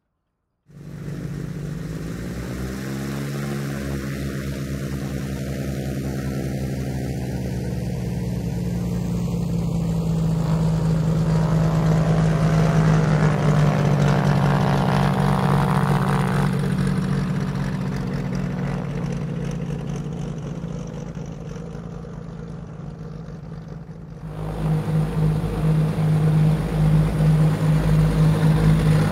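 Piston engine of a light propeller airplane running as it taxis past on the ground. It grows louder toward the middle and then eases off, with a phasing sweep rising in pitch during the first ten seconds. About 24 seconds in the sound changes abruptly to a closer, louder engine with a pulsing throb.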